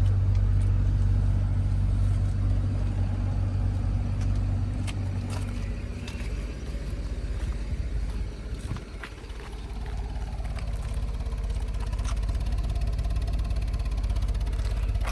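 BMW N53 3.0-litre inline-six engine running with a misfire. The sound is strong at first, fades about halfway through, then builds back up.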